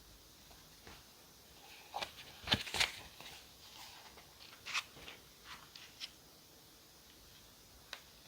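Quiet handling of paper and stationery during diary decorating: short taps, clicks and crinkly rustles, busiest about two to three seconds in, with a few more scattered after.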